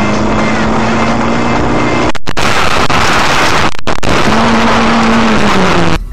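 Loud road and tyre noise of a moving car recorded from inside, with a steady engine note that falls in pitch near the end. The sound cuts out briefly twice.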